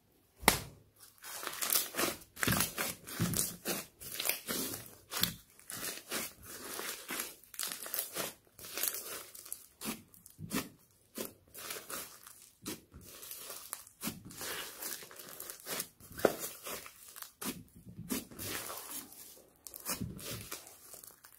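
Foam-bead slime (floam) being squeezed, kneaded and stretched by hand. It gives a quick, irregular run of sharp crackles and squishes that starts about half a second in.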